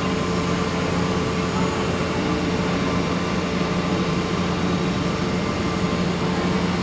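Steady airport noise heard from inside the terminal: a constant rushing hum with a few steady droning tones, unchanging throughout.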